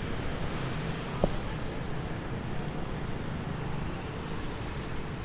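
City street traffic ambience: a steady rumble and hiss of passing vehicles, with one sharp click about a second in.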